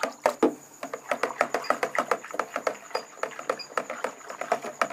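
Perfume and DP oil diluent being stirred hard in a plastic bucket: quick, irregular sloshing and clattering strokes, several a second, as the dilution is mixed.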